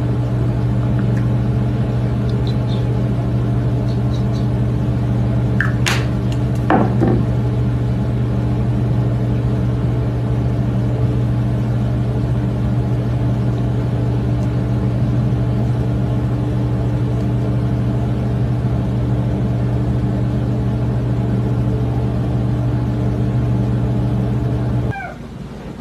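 A steady, loud low hum, as of a motor or fan running, with two short rising squeaks about six and seven seconds in. The hum cuts off suddenly near the end.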